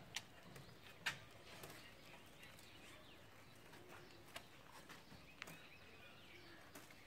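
Quiet room tone with a handful of sharp clicks and faint, distant bird chirps.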